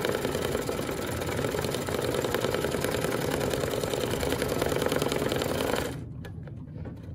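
Brother Luminaire embroidery machine stitching out a swirl design, its needle running in steady rapid strokes. The stitching cuts off suddenly about six seconds in.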